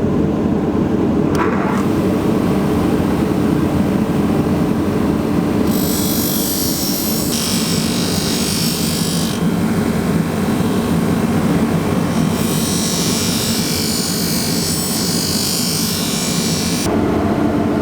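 A machine running steadily with a low hum, with a high hiss joining in twice, from about six to nine seconds in and again from about twelve to seventeen seconds in.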